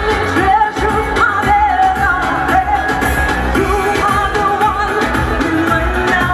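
A woman singing a pop song live over loud band music with a steady beat, amplified through the stage's PA speakers.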